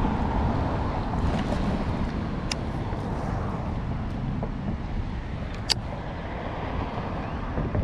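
Two sharp clicks of a baitcasting reel, about two and a half seconds in and again near six seconds, as the spool is freed for a cast and then re-engaged. Under them runs a steady low outdoor rumble.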